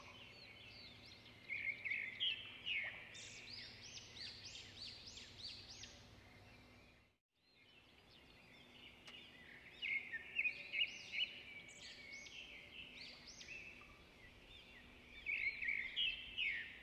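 Birds chirping: many short, quick, high chirps that come in busy bursts, faint overall, with a short break about seven seconds in.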